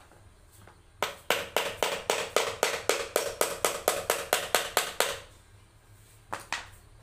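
Small hammer tapping rapidly on an embossed copper-coloured metal sheet fitted over a box, about four to five sharp taps a second with a slight metallic ring. The taps run for about four seconds, stop, and two more follow near the end.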